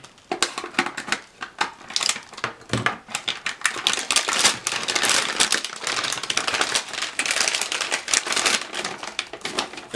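Thin plastic bag around a spool of 3D-printer filament crinkling and rustling as hands pull it open and work the spool out, a dense run of quick irregular crackles.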